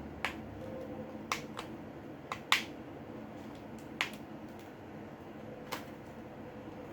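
Sharp, separate clicks and taps, about seven, from small repair tools and smartphone parts being handled and pried during disassembly; the loudest comes about two and a half seconds in.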